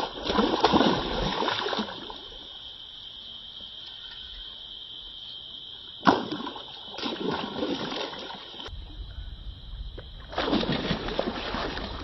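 Hooked snakehead thrashing and splashing at the water's surface, in three bursts: at the start, a sharp splash about six seconds in followed by more churning, and again from about ten seconds in.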